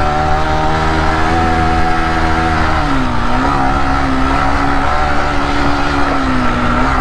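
Yamaha R15 V3 motorcycle's single-cylinder engine running at steady revs while riding, its pitch easing down a little about three seconds in and then holding steady.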